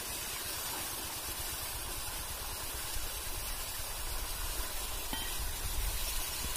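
Groundwater from an artesian well spraying out under its own pressure around a cap held over the pipe outlet: a steady, even spray.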